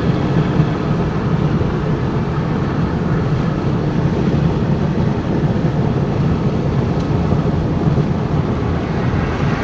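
Steady road and engine noise heard from inside the cab of a vehicle cruising on a highway, a constant low rumble with a hiss of tyres and wind above it.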